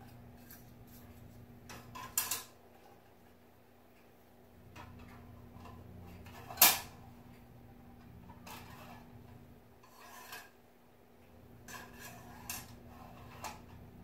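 Plastic nest box and wire bird cage being handled: scattered light clicks, rattles and rubbing of plastic against wire as the nest box is hung on the cage front, with one sharp click about six and a half seconds in.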